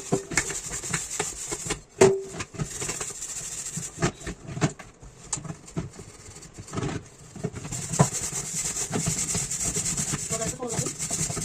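Dishes being washed by hand: scrubbing and rubbing on dishes, broken by knocks and clinks, the loudest a ringing clink about two seconds in.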